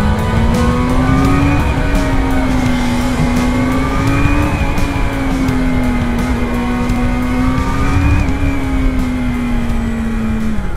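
Yamaha sportbike engine running under way, its note rising and easing back about three times, over low wind rumble.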